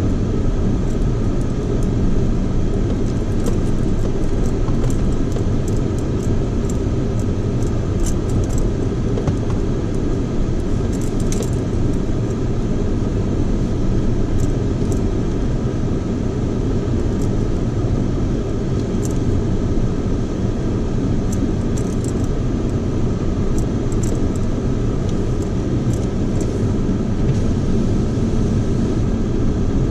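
Vehicle running slowly over a rough, rocky dirt road at walking pace: a steady low engine and road rumble, with scattered clicks and rattles throughout.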